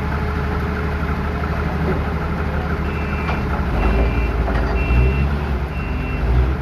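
18-inch rubber hot mill running with a steady low mechanical hum that grows heavier a little over halfway through. A short electronic beep sounds about once a second from about halfway in.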